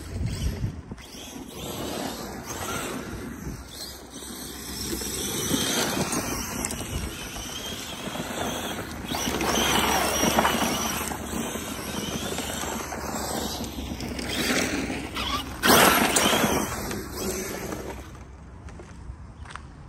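ARRMA Big Rock 6S RC monster truck's brushless electric motor whining and its tyres spinning and spraying loose dirt as it drifts. The sound swells and fades in long waves as the truck comes and goes, with a sudden loud burst about three-quarters of the way through, then dies down near the end.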